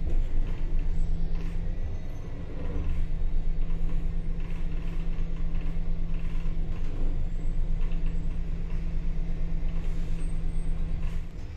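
City bus running along the road: a steady low engine drone with faint knocks, the level dipping briefly about two seconds in.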